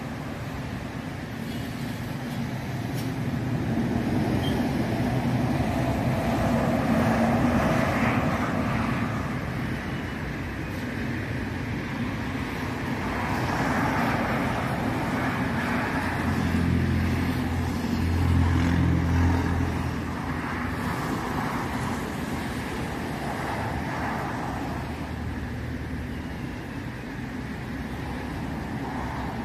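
Road traffic: cars passing one after another, each rising and fading. The loudest comes about two thirds of the way through with a deep engine hum.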